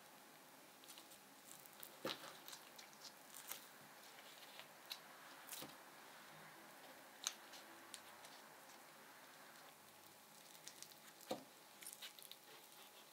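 Faint, soft cutting of oven-baked sweet potatoes with a chef's knife, the blade sinking through skin and soft flesh, with a few sharp taps of the knife on a wooden cutting board. Near the end a spoon starts scraping out the soft flesh.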